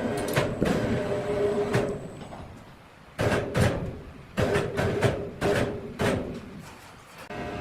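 A series of about ten sharp, irregular knocks and thumps, typical of pieces of timber being handled and knocking against each other. A steady machine hum runs under the first two seconds and fades.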